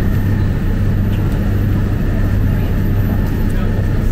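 Steady low rumble of a passenger train running, heard from inside the carriage.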